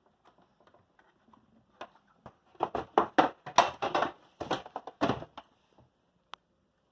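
Handling noise: an irregular run of crackles and taps for about three seconds in the middle, then a single sharp click near the end.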